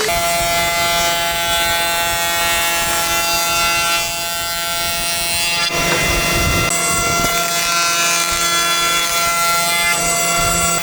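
An electric woodworking power tool running with a steady motor whine over the noise of the cut, with a stretch of coarser, heavier noise about six seconds in.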